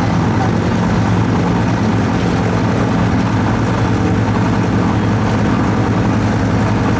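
Diesel engine of a wooden abra water taxi running steadily under way, a constant low drone.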